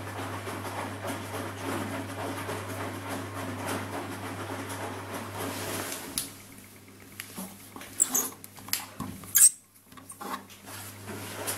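Ardo A 500L front-loading washing machine tumbling laundry in soapy water: a steady motor hum with the slosh of the load, in the wash phase of a 60° cotton cycle after the water has heated. About six seconds in, the drum stops for its pause between turns, and a few sharp clicks and knocks follow before the hum starts again at the very end.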